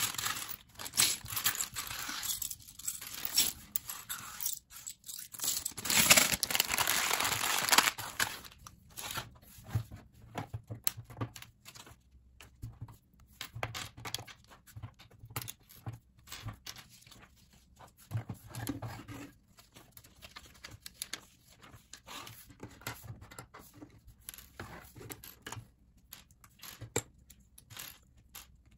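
A plastic bag crinkling loudly for the first several seconds. After that come many small clicks and snaps of LEGO bricks being pulled apart and set down on a hard table.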